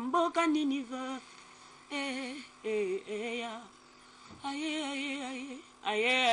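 A woman singing a gospel song unaccompanied, in held phrases with wide vibrato and brief pauses between lines.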